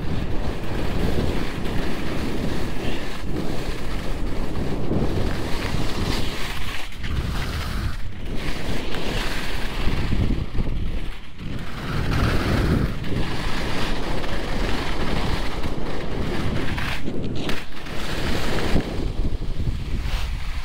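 Wind buffeting the microphone, loud and gusty, with a few brief lulls.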